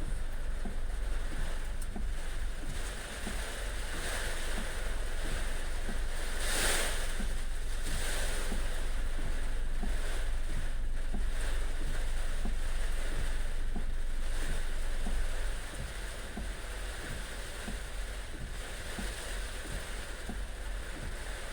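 Heavy rain pouring down as a steady hiss, with wind rumbling on the microphone underneath. It becomes a little quieter about fifteen seconds in.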